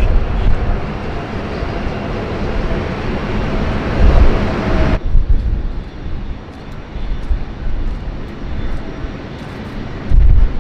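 Jet airliner engine noise, a loud steady rush with a heavy low rumble. About halfway through it changes abruptly to a quieter, duller engine sound with the highs gone.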